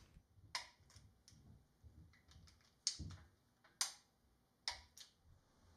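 A hand ratchet clicks as it tightens the engine's front-cover bolts: about five short, sharp clicks at uneven spacing, the loudest about three seconds in.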